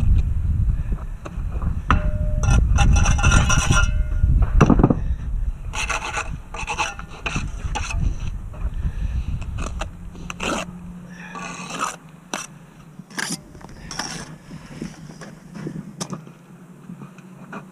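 Bricklaying at the wall: mortar is scraped and concrete blocks are handled and set, giving a string of short scrapes and knocks. A low, uneven rumble from wind on the microphone runs through the first half.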